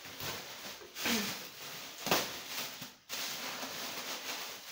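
Thin plastic carrier bag rustling and crinkling as its knotted handles are pulled and untied, with a louder crackle about two seconds in and a brief break about a second later.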